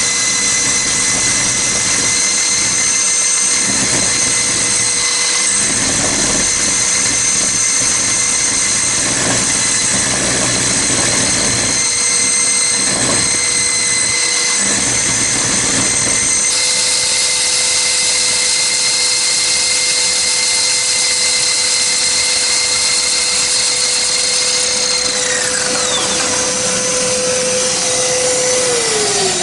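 Diamond core drill with a 200 mm core bit drilling dry: a steady motor whine under grinding, scraping noise from the bit cutting. In the last few seconds the motor's pitch falls as it winds down.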